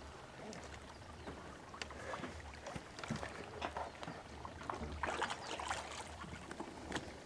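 Small irregular splashes and lapping of water around the anchored boat and from a swimmer, over a low pulsing rumble; the splashing gets busier about five seconds in.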